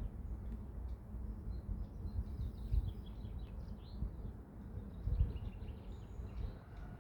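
Outdoor ambience of small birds chirping faintly, many short calls, over a low uneven rumble.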